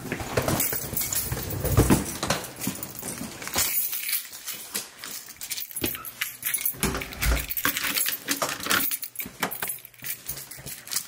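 Irregular clicks, knocks and rattles of a rolling suitcase and a door being handled on a tiled entryway, with some metallic jangling.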